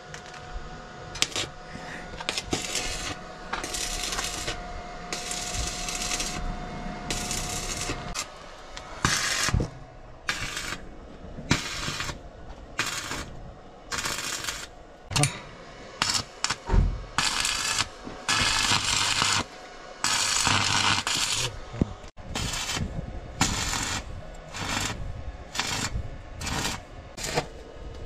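Stick (arc) welder crackling in short bursts of a fraction of a second to about a second and a half, about twenty in all, as the electrode is struck, burns briefly and the arc is broken again. The welds are being laid on the underside of a cargo truck's frame, re-joining a bracket whose welds had shaken loose on rough roads.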